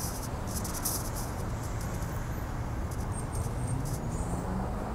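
Outdoor street background: a steady low rumble with a few brief rustles, about half a second in and again around three seconds in.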